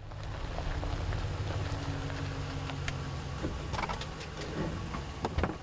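Ram pickup's Hemi V8 engine running with a steady low rumble. Several sharp clicks and ticks come over it in the second half.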